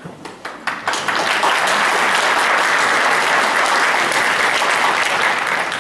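Audience applauding: a few scattered claps first, swelling within about a second into full applause that dies down near the end.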